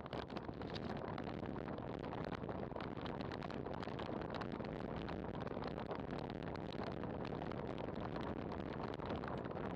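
Wind buffeting the microphone of a camera mounted on a road bike descending at around 50–60 km/h: a steady rushing noise with constant fine crackle.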